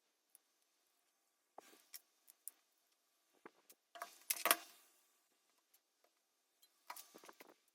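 Small hard parts being handled and fitted, giving sparse clicks and light rattles. The loudest cluster comes about four seconds in, and a shorter group follows near the end.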